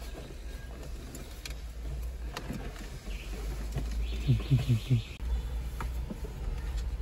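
Handling noise of a cable being fed behind plastic dashboard trim: scattered light clicks and rustles over a low steady rumble. Around four seconds in, a quick run of four short low pitched sounds comes with a brief scrape.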